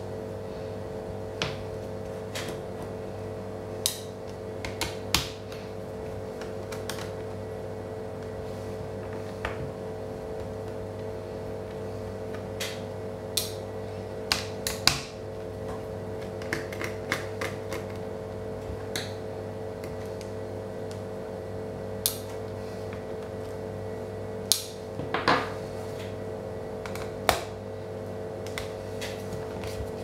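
Sharp clicks and taps of a screwdriver and small parts being handled on a Dell Latitude D430 laptop's underside during disassembly. They come scattered, with a cluster about halfway and another near the end, over a steady hum.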